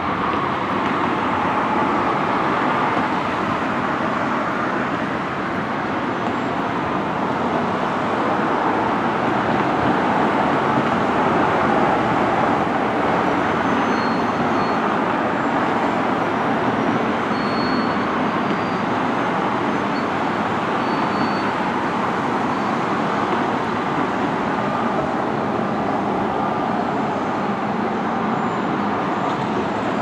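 A steady din of distant engines, with no single machine standing out. A few brief, faint high tones sound about halfway through.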